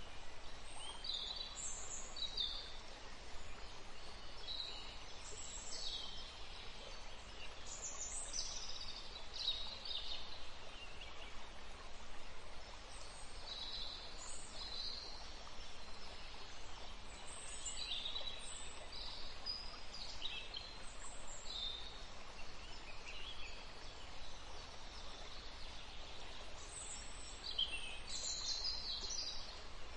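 Birds chirping: many short, high calls coming in scattered clusters over a steady hiss of outdoor background noise.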